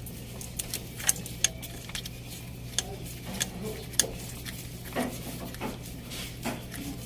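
Scattered light metallic clicks and clinks of hand tools and small metal parts being handled, over a steady low hum.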